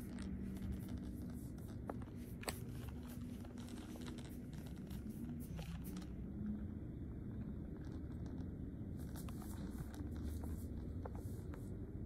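Steady low indoor hum and rumble, with scattered faint clicks and ticks.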